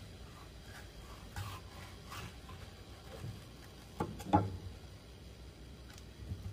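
Long sashimi knife working along a wooden cutting board as a mandarin fish fillet is skinned: a few faint scraping strokes, then two sharp knocks of the blade against the board about four seconds in.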